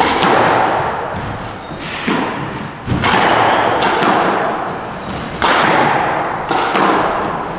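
Squash rally: the ball is struck by racquets and smacks off the court walls about five times, each a sharp crack with a long echo in the enclosed court. Short high squeaks of sneakers on the wooden floor come between the hits.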